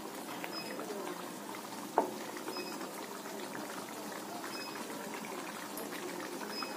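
Thick creamy paneer gravy bubbling and simmering in a frying pan, with a steady patter of small pops. There is one sharp knock about two seconds in.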